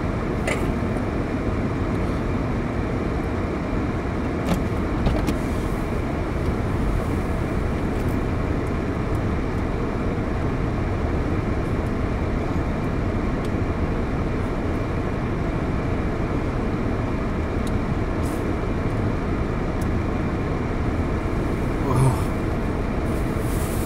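Steady rumble and hiss inside a car's cabin, with a few small clicks and knocks scattered through it and a short low vocal sound about two seconds before the end.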